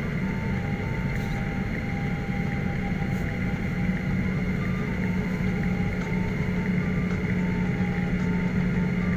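Airliner's jet engines idling on the ground, a steady hum heard from inside the passenger cabin.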